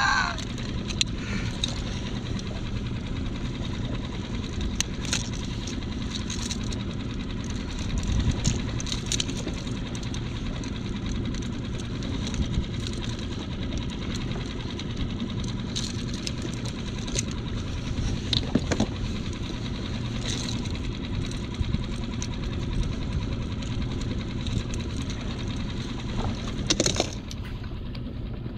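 Small Mercury outboard motor idling steadily on a skiff, with a few sharp metallic clicks from pliers working a trolling lure's hooks.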